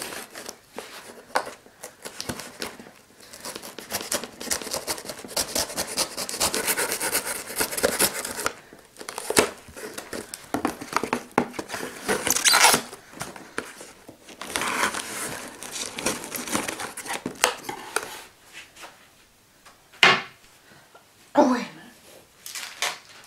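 A knife cutting through clear plastic packing tape on a cardboard shipping box, with the tape tearing and crackling in repeated bursts. Near the end it gives way to a few separate short rustles and scrapes of the box.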